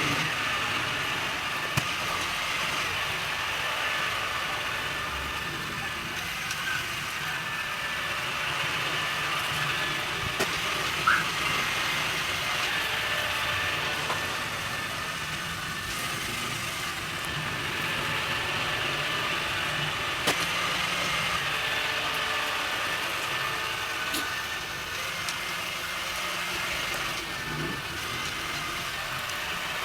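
Ainol A-S11 robot vacuum running in mop mode with its water tank fitted, its fan at reduced suction and its brushes giving a steady whirring hum. A few brief sharp clicks stand out now and then.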